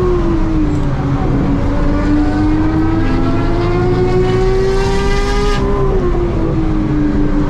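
Racing engines at high revs heard from inside a BMW M3's cabin on track: the M3's V8 and the decat, JCR-exhausted Porsche 991 GT3 RS flat-six just ahead. The engine note drops about a second in, climbs steadily for several seconds as the car accelerates, then drops again near six seconds.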